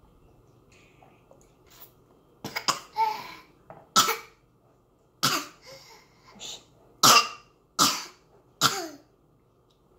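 A toddler coughing, a string of short, sharp coughs that start about two and a half seconds in and come roughly once a second.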